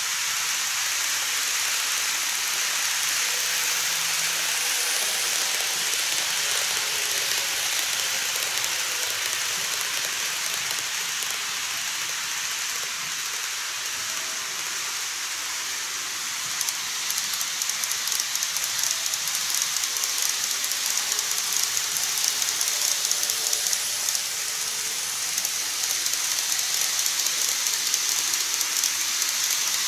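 N-scale model electric train running on sectional track: a steady rolling hiss, joined a little past halfway by fast, dense clicking of the wheels over the rail joints as the train comes close and crosses the truss bridge.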